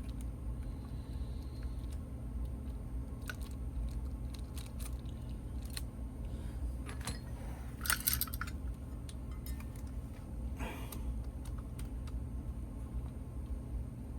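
Small handling sounds of a suspension link and its hardware being fitted on an RC crawler: scattered light clicks and rattles of small metal and plastic parts, with a short cluster about eight seconds in, over a low steady hum.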